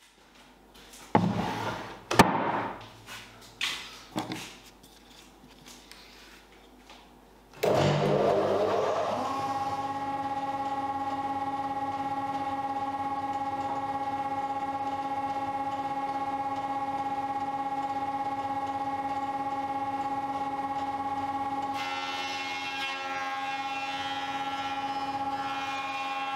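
A few knocks and clunks of timber being handled, then a jointer (surface planer) switches on about a third of the way in, runs up to speed and hums steadily. Near the end its cutterhead bites into a board being fed across it, adding a rough, hissing planing noise.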